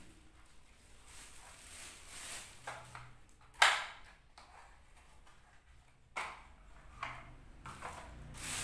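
Clear plastic packaging bag rustling and crinkling as a vacuum cleaner's floor brush is unwrapped and handled, with a few sharp rustles or knocks, the loudest about three and a half seconds in and two more near the end.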